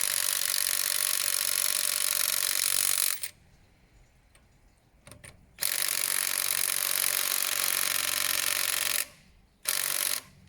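Cordless impact wrench hammering against a wheel nut in three runs: one that stops about 3 s in, a second of about 3.5 s, and a short blip near the end. The nut does not come loose.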